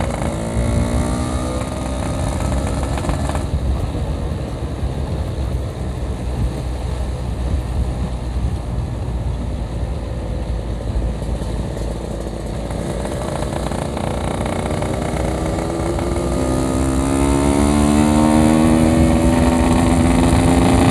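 Yamaha RX-King 135cc two-stroke motorcycle engine running under way, with wind rumble on the microphone. Its pitch climbs and it grows louder over the last several seconds as the bike accelerates.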